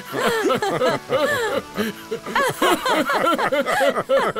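Several cartoon voices laughing together in quick, repeated bursts over background music.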